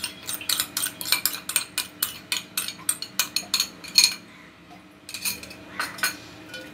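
Quick clicking and clinking of a small container tapped and scraped against the rim of a steel bowl while it is emptied, about five clicks a second. The clicks break off about four seconds in, then a few more follow.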